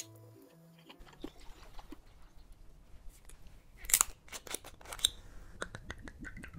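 Close-miked eating and table sounds: soft chewing of noodles, then a cluster of sharp clicks and clinks about four seconds in as a soju bottle and shot glass are handled, with lighter ticks after.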